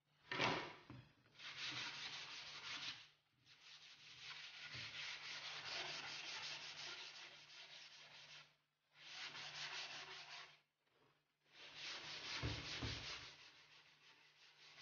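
Sandpaper rubbed by hand along the edge of freshly ironed-on PVC edge banding on a laminated MDF board, in four spells of scratchy strokes with short pauses between them, smoothing the edge of the banding. A single knock sounds right at the start.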